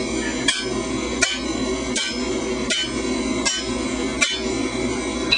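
Heavy hand hammer striking the back of an axe used as a hot set, driving it into a hot iron bloom on an anvil to cut it through. Six evenly paced blows, about one every three-quarters of a second, over a steady low hum.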